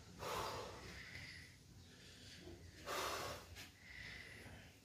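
A man breathing hard through his mouth to cool the burn of a very hot chili chip: two strong breaths, about a second in and about three seconds in, with fainter breaths between.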